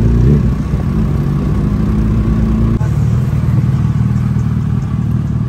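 Suzuki Hayabusa's inline-four engine running as the motorcycle is ridden at low speed, with a short rev right at the start. The engine note changes abruptly about three seconds in.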